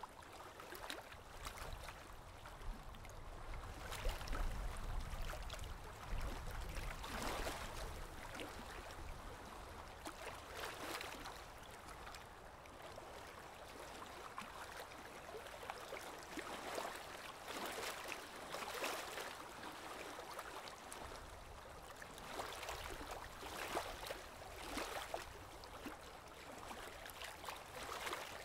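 Drawing tool rubbed over drawing paper in shading strokes: a soft, scratchy rubbing that comes and goes in irregular bouts. There is a low rumble a few seconds in.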